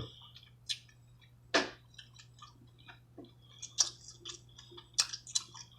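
Close-up mouth sounds of a person eating soft crab meat: wet chewing with scattered lip smacks and clicks, the sharpest about a second and a half in and a few more near the end.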